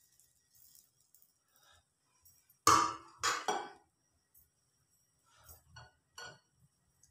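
A metal ladle is set down in a steel mixing bowl with two sharp clinks, about two and a half and three seconds in, followed by a few fainter clinks near the end.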